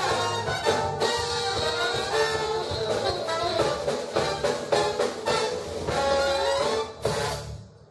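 Live frevo de rua band of saxophones, trombone and drums playing an instrumental brass tune, which ends about seven seconds in on a final accented chord that rings briefly and dies away.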